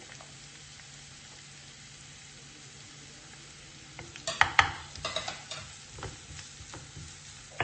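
Chopped onions, garlic and green chillies sizzling faintly in oil in a nonstick frying pan. About four seconds in, a wooden spatula starts stirring and scraping the pan in a run of sharp strokes, the loudest near the start of the stirring.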